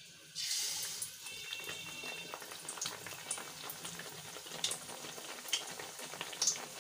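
Besan-batter-coated naan going into hot oil: a sudden burst of sizzling about half a second in, settling into steady frying with scattered pops and crackles.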